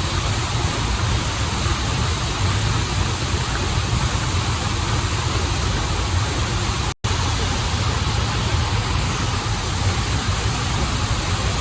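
Steady rushing of running water from a stream and waterfall. It cuts out for an instant about seven seconds in.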